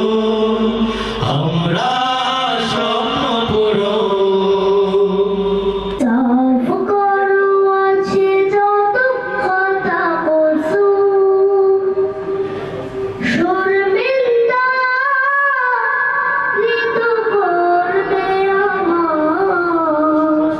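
Islamic devotional song (gojol): a group of male voices sings together, with a low hum beneath. About six seconds in it cuts abruptly to a boy's solo voice singing a melodic, ornamented line into a microphone.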